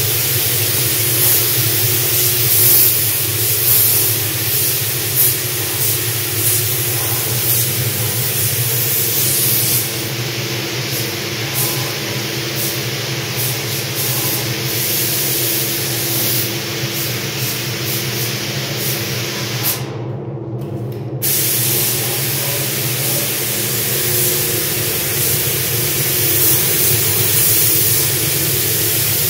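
Gravity-feed compressed-air paint spray gun hissing steadily as it atomizes paint. The hiss stops for about a second two-thirds of the way through as the trigger is let off, then resumes. A steady low hum runs underneath.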